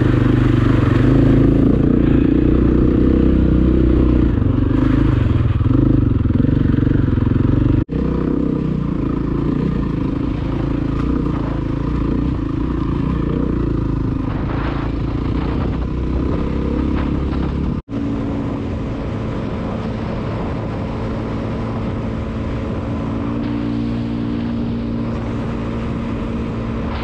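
Dirt bike engine running steadily under way, with wind and road noise and water splashing in the first couple of seconds. The sound breaks off abruptly twice.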